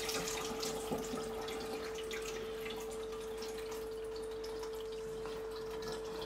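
Water running steadily into a bowl of dried sugar beans to soak them, with a faint steady hum underneath.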